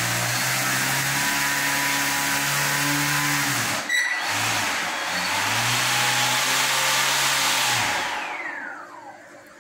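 Electric thruster motors of a homemade PVC-pipe underwater drone running out of the water with a steady whir and hum. They cut out for a moment about four seconds in and start again, then near the end switch off and spin down with a falling whine.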